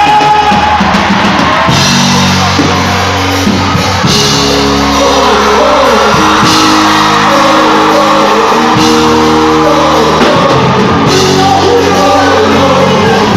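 Live gospel praise band playing loudly with drums, bass and held keyboard chords, while voices sing and shout over it in a large hall.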